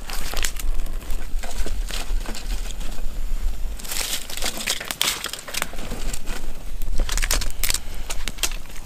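Dry twigs snapping and rustling as they are broken and pushed into a small folding steel wood stove, with the kindling fire crackling. The snaps come irregularly, with a denser flurry about halfway through.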